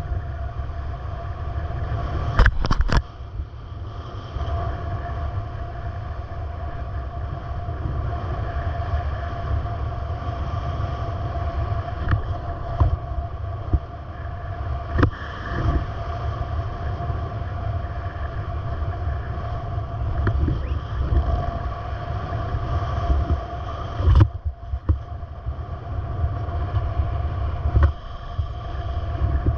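A vehicle running: a steady low rumble with a steady whine over it and a few sharp knocks, the loudest a couple of seconds in and another near the end.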